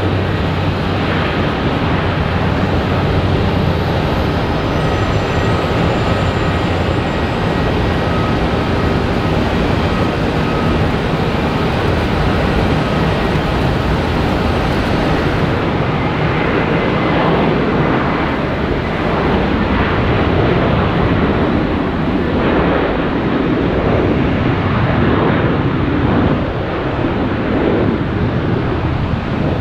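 Jet airliner engines, a loud steady rush with a thin high whine through the first half that fades out about halfway, the rush turning rougher after that.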